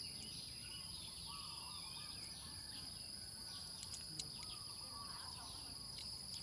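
Faint outdoor ambience: birds chirping over a steady high-pitched insect drone, with a couple of light clicks about four seconds in.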